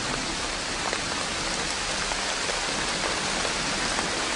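Rainstorm in tropical forest: steady rain falling, a dense even hiss with scattered individual drop hits.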